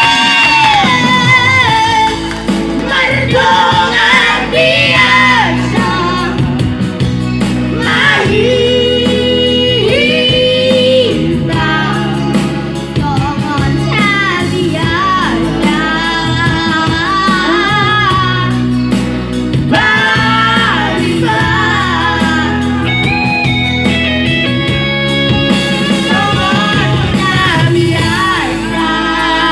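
A voice singing a slow melody with wavering, held notes over instrumental accompaniment.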